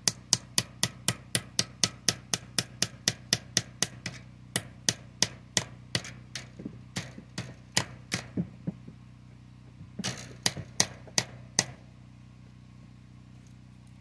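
Rapid hammer blows, about four a second at first, then slowing, then after a short pause a final run of about five. A steady low hum runs underneath.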